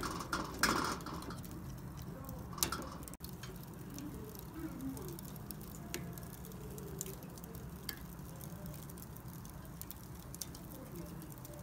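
Chicken pieces cooking on a wire grill basket over glowing charcoal: irregular small crackles and pops over a low steady hiss, with a few louder pops in the first three seconds.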